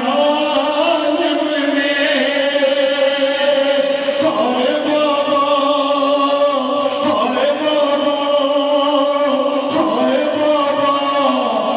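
A noha, a Shia mourning lament, chanted by a male voice in long, held, melismatic notes, with the pitch sliding between phrases.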